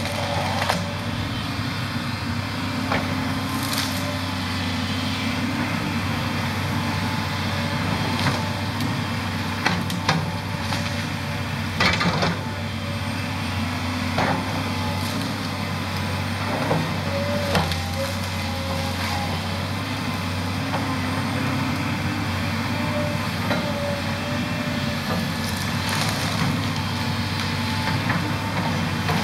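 Volvo EC210 excavator's diesel engine running steadily under load while the machine pushes over and breaks up trees, with repeated sharp cracks of snapping and splintering wood, the loudest about twelve seconds in.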